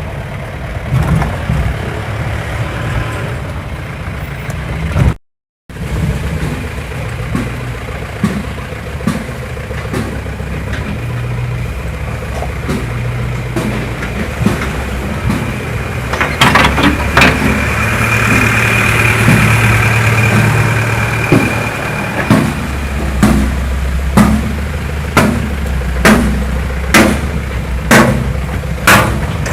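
Vehicle engine running, its pitch shifting in steps, with a run of sharp, regular knocks in the second half that come a little faster towards the end.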